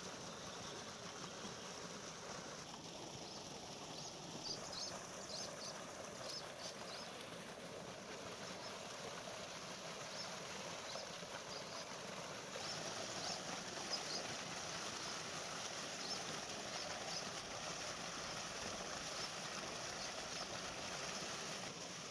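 Spring water pouring steadily from a stone outlet into a shallow channel, a continuous running-water rush that grows a little louder about halfway through. A few brief high chirps sound over it.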